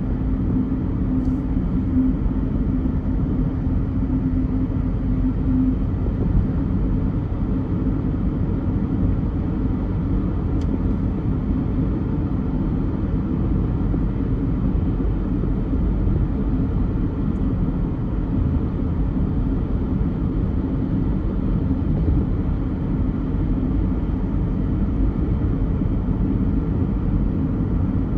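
Steady low rumble of a car driving, with a steady hum that fades after about six seconds.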